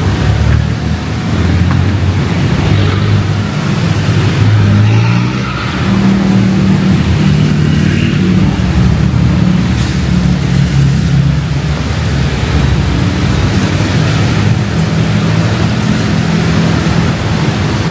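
City road traffic on a wet street: engines of nearby vehicles running close by and changing pitch as they pull away, over a steady hiss of rain and wet road.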